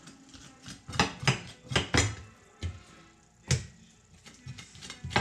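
Kitchen utensils and dishes clattering as whiting is cleaned: an uneven string of sharp knocks, about one every half second.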